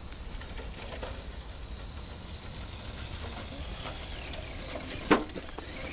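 Axial SCX10 radio-controlled crawler's electric motor and gears whining high as it drives over stones and grass, the pitch shifting with the throttle. There is a single sharp knock about five seconds in.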